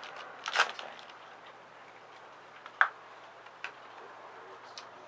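Trading cards being handled as packs are sorted through: a soft swish about half a second in, then a few short, sparse ticks and clicks.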